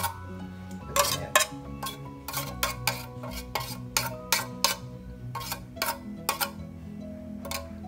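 A utensil scraping and knocking against a metal tin as crab paste is emptied into a bowl: a run of irregular sharp clinks and knocks, several a second with short pauses, over background music.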